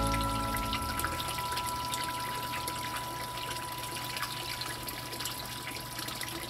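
Water trickling and splashing steadily in a small garden pond, with fine dripping ticks and a faint steady high tone underneath. The tail of the background music fades out about a second in.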